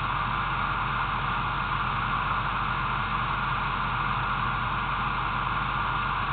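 Steady, unchanging static-like hiss with a faint low hum beneath it. It does not rise or fall as traffic moves past.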